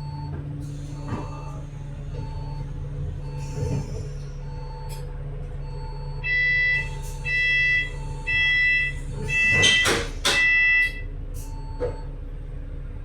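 Bus engine idling under a soft repeating blip, then the bus's door-closing warning sounding five loud beeps with a clatter of the doors shutting during the fourth.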